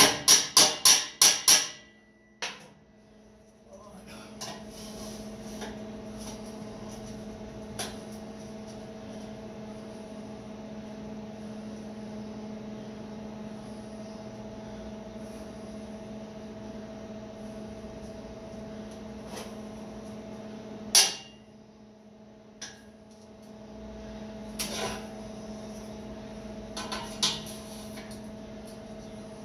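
A quick run of about seven hammer blows on metal, then a steady hum with scattered clanks and one loud knock about two-thirds of the way through.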